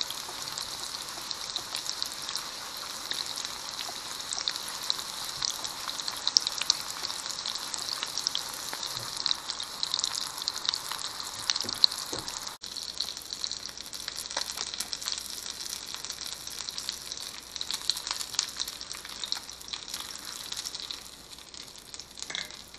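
Crappie fillets coated in flour, egg and cracker crumbs frying in hot oil: a steady sizzle full of small crackling pops.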